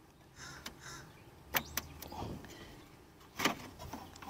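A crow cawing twice outside, about two seconds in and again about three and a half seconds in, the second caw louder. Between them come a couple of short sharp clicks from the plastic grill retaining tabs being pressed and handled.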